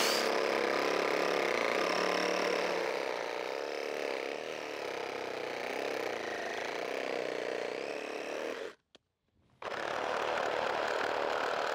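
Cordless reciprocating saw cutting through the end of a wooden board, running steadily. It cuts off abruptly about nine seconds in, is silent for under a second, then runs again.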